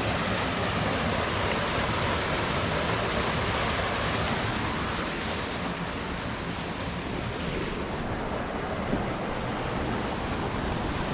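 Steady rushing water of a forest stream, a loud, even wash of noise that eases a little about halfway through.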